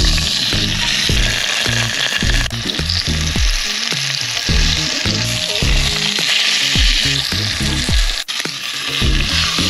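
Food sizzling as it fries in a cast-iron Dutch oven, a steady hiss, with background music carrying a steady bass beat underneath. There is a brief break a little past eight seconds in.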